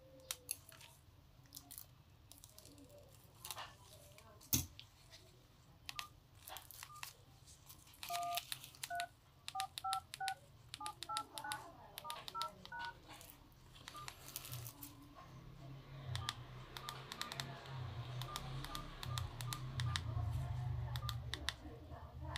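Nokia 105 (2017) keypad in use: button clicks, then a quick run of about ten dual-tone dialing beeps as the digits are typed. Later come short single beeps as keys are pressed in the menus, over a low rumble that swells in the second half.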